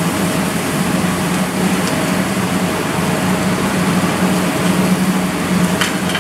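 Steady roar and hum of a commercial gas wok stove running under a wok, its burner and blower going continuously.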